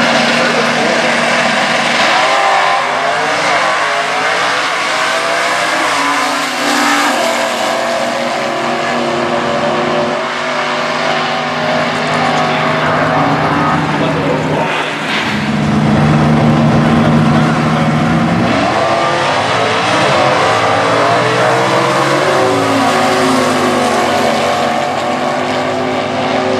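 Stock Eliminator drag race car engines running hard at full throttle. The pitch climbs, drops suddenly and climbs again several times, as cars accelerate and shift through the gears.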